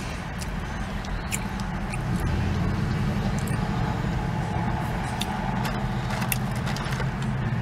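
A vehicle engine idling with a steady low hum that grows a little louder about two seconds in, with scattered light clicks over it.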